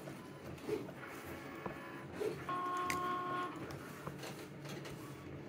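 A small machine's motor running, with a steady whine that holds for about a second near the middle, a few light clicks, and a faint hum underneath.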